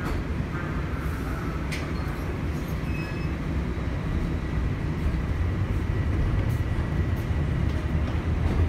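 Toronto Rocket subway train on TTC Line 1, heard from inside the car as it runs through the tunnel. A steady low rumble grows slightly louder as the train gathers speed, and a faint steady high whine joins about halfway.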